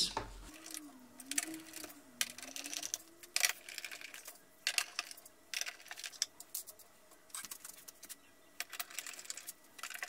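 Torx screwdriver driving screws into a plastic printer case: irregular small clicks and scrapes of the bit turning and the plastic being handled.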